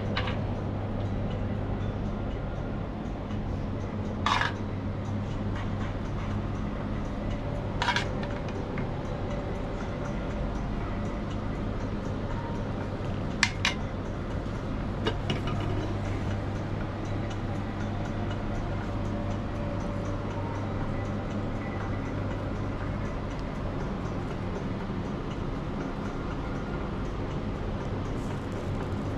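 A metal spoon clinks and scrapes against a nonstick pan a handful of times, well spaced, as cooked chicken pieces are scooped out. A steady low hum runs underneath.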